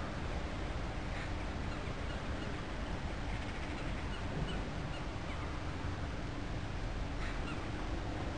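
Steady outdoor background noise with a low rumble and a faint steady hum, with a few faint short high chirps scattered through it.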